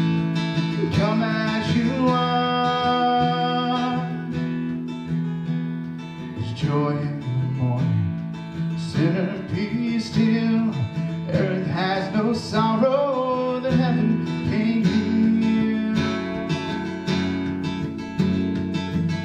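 Live worship song: a strummed acoustic guitar and an electric bass, with a man singing at times.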